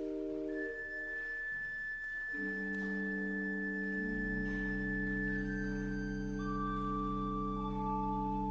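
Organ playing sustained chords, with a high held melody note that steps down in pitch several times and a deep bass note coming in about halfway through.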